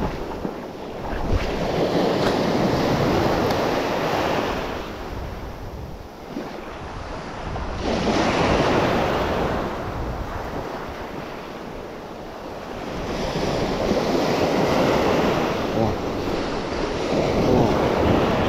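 Waves breaking on a beach, the surf swelling and falling back four times, about every five seconds, with wind rumbling on the microphone.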